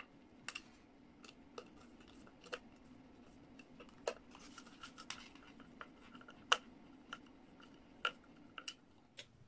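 Small screwdriver turning screws in the plastic housing of a siren horn: scattered sharp clicks and faint scraping, the loudest click about two-thirds of the way through.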